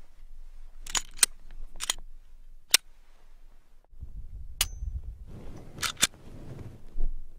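Glock 19 Gen 4 pistol being dry-fired: sharp metallic clicks of the trigger breaking on an empty chamber and of the slide being worked to reset it, seven in all, some in close pairs. One click about four and a half seconds in rings briefly.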